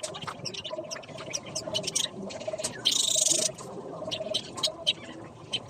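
Small birds chirping rapidly, with a low pulsing call repeated every half second or so. About three seconds in, a short hissing burst lasting about half a second is the loudest sound.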